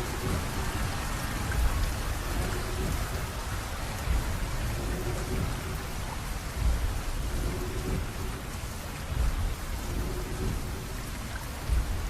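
Steady rain, with low rolls of thunder swelling every few seconds.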